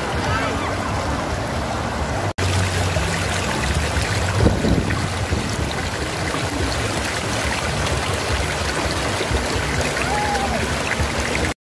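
Shallow river water rushing and splashing over rocks in a small rapid, a steady rush close to the microphone. It drops out for an instant about two seconds in and cuts off suddenly just before the end.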